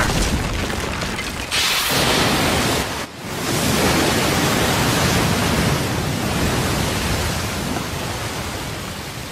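Animated-battle sound effect of a blast: a loud, steady rush of noise like a shock wave and billowing dust, dropping out briefly about three seconds in before surging back.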